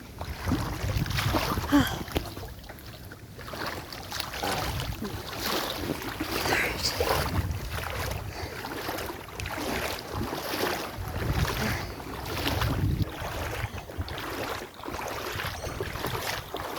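Footsteps wading through shallow floodwater: a splashing swish about once a second.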